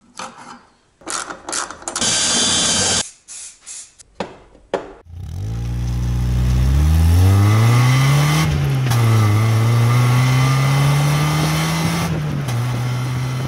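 Short snippets of workshop noise, among them about a second of loud hissing whir. Then a red NA Mazda MX-5 Miata's four-cylinder engine pulls away, its pitch climbing under acceleration, dipping briefly about three seconds later and then holding steady.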